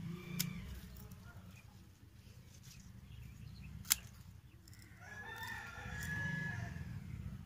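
Pruning shears snip through tomato stems: a light click near the start and a sharp, loud snap about four seconds in. A rooster crows once, a long call beginning about five seconds in and lasting about two seconds.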